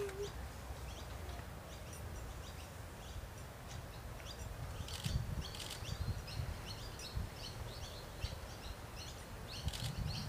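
Small birds chirping, many short high calls one after another, over a low outdoor rumble that swells a few times.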